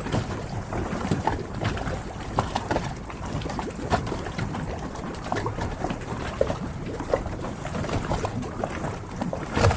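Harbour water lapping and splashing against moored yachts, with many small scattered knocks and clicks and one louder knock near the end.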